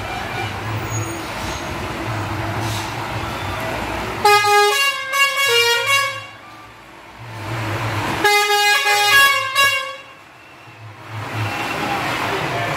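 A decorated Sri Lankan bus's engine runs with a steady low hum as it pulls away. Its horn sounds twice, about four and eight seconds in, each time a loud run of changing-pitch notes lasting about two seconds, like a musical horn playing a tune.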